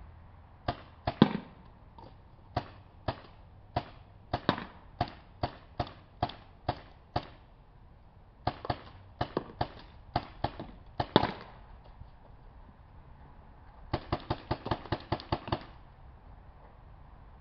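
Tippmann 98 Custom paintball gun firing single sharp pops: a string at about two shots a second, a short pause, a few more shots, then a quick run of about ten shots near the end.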